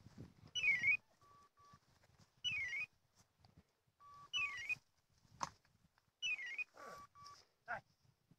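Electronic beeper collars on hunting dogs sounding their point-mode signal, which means a dog is standing still on point. A falling-then-rising chirp repeats four times about two seconds apart, with short double beeps in between.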